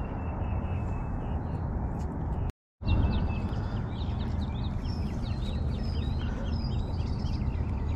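Many small birds chirping and singing over a steady low background rumble. The sound cuts out completely for a moment about two and a half seconds in.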